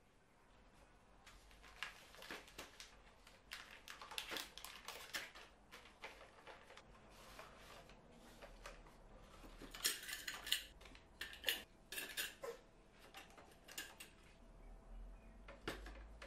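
Metal kitchen utensils clinking and rattling as they are handled and set into cardboard drawer dividers: a faint, irregular run of light clinks, busiest and loudest about ten to twelve seconds in.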